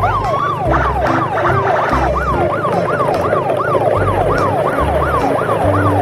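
Electronic siren wailing rapidly up and down, about three sweeps a second, over background music with a bass line.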